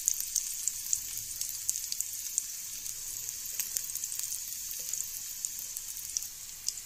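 Mustard oil sizzling in a kadai with green chillies and just-added coriander frying in it: a steady high hiss dotted with many small crackles and pops.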